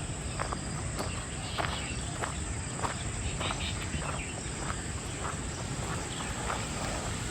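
Footsteps on a park path at a walking pace, about two steps a second, over a steady high drone of insects.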